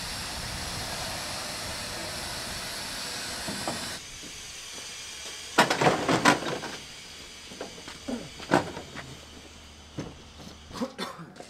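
Compressed air hissing steadily from the sliding drawbar of a truck and close-coupled trailer as it is unlocked and retracted, cutting off abruptly about four seconds in. Then a cluster of metal clunks and rattles, and a few single knocks later, as the cargo-body doors between truck and trailer are unlatched and opened.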